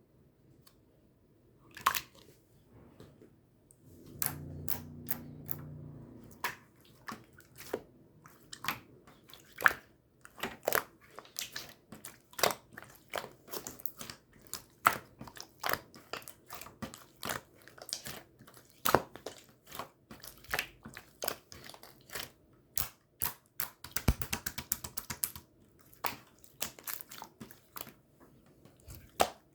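Pink two-layer slime being pressed and worked by hand, giving irregular crunchy clicks and pops, several a second, starting about two seconds in. A brief low hum runs for about two seconds around four seconds in.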